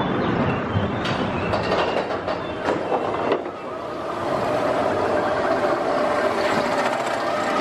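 Expedition Everest roller coaster train being hauled up its chain lift hill: the lift chain and wheels rattle on the track with sharp clicks, settling into a steady mechanical hum from about four seconds in.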